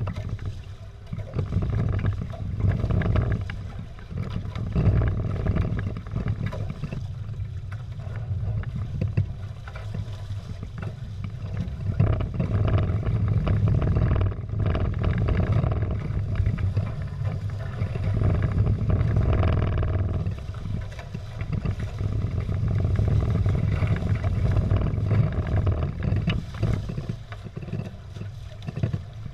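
Wind buffeting a GoPro's microphone on a Prindle 16 catamaran under sail, a deep uneven rumble, mixed with water rushing and splashing along the hulls. It swells and eases irregularly with the gusts and chop.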